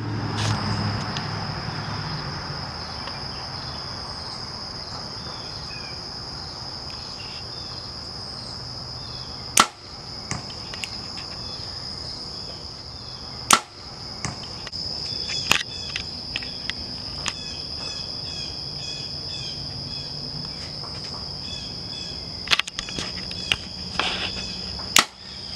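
Steady high-pitched insect chorus, with a second insect's pulsed calls joining about halfway. Three sharp cracks cut through it, the last near the end as a compound bow is shot.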